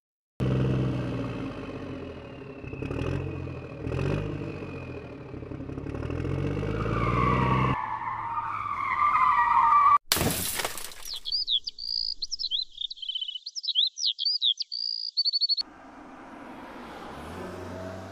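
Toy-vehicle engine sound, its pitch rising and falling, with a sliding whine as it ends; a loud splash about ten seconds in; then a run of high chirping squeaks and another engine sound near the end.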